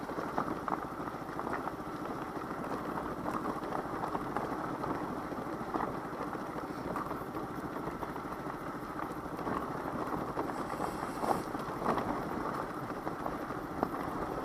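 Daelim Witty 100 scooter's small engine running at low revs while riding downhill over a rough, wet trail, with scattered small knocks and rattles.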